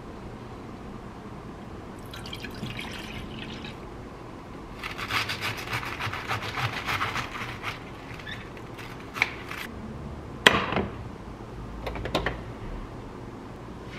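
Liquid pouring or splashing in two short spells, then a few sharp clicks or knocks, the loudest about ten and a half seconds in.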